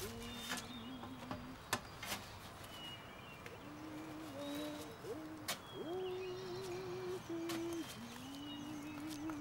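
A slow, low melody of long, wavering held notes that slide from one pitch to the next, with faint bird chirps above it and a few sharp clicks.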